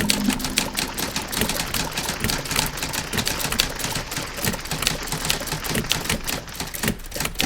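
Typewriter keys clacking in a fast, irregular run of strikes. The last held note of an old radio song dies away right at the start.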